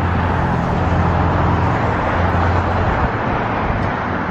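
A motor vehicle driving past on the street: steady tyre noise with a low engine hum, the hum dropping away about three seconds in.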